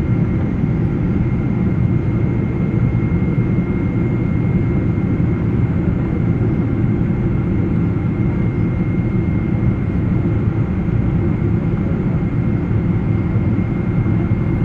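Boeing 777 aircraft noise: a steady low roar with a thin, steady high whine above it.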